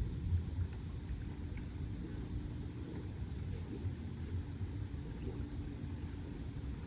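Outdoor ambience: a steady high insect drone with a few faint chirps over a continuous low rumble.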